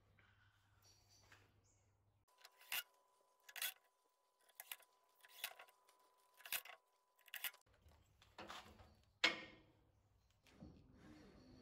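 Cordless drill run in about six short bursts, roughly one a second, followed by a single sharp click.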